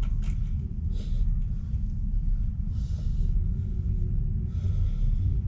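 A low, steady rumble, with a few short bursts of hiss.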